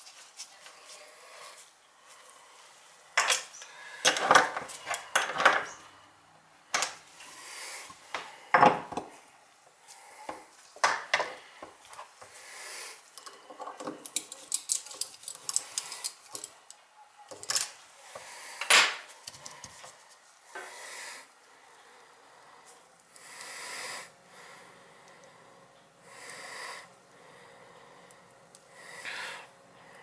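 Chrome parts of a Delta two-handle kitchen faucet clinking, clicking and scraping as the stems and lever handles are fitted back on by hand. Sharp clicks and knocks come thick through the first two-thirds, then give way to softer rubbing.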